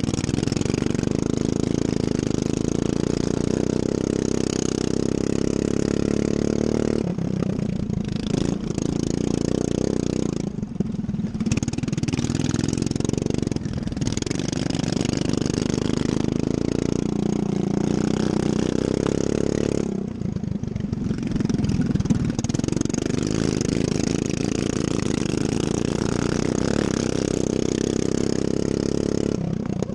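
Racing lawn mower engine running hard, its pitch dropping away and climbing again several times as the mower slows for corners and accelerates.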